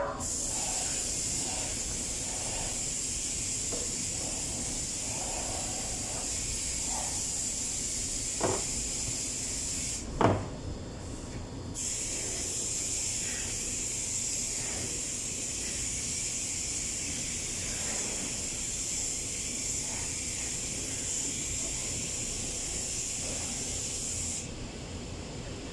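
A steady high hiss that breaks off for a couple of seconds about ten seconds in and cuts off near the end. Two sharp clinks of metal hydraulic pump parts being handled come about eight and ten seconds in.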